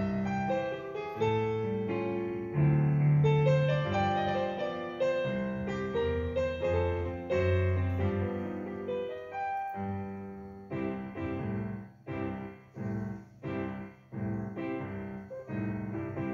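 Yamaha DGX-660 digital piano playing in its 'Pianist' preset style, piano chords and melody starting suddenly. The first ten seconds or so are held, flowing chords; after that it changes to short detached chords about twice a second.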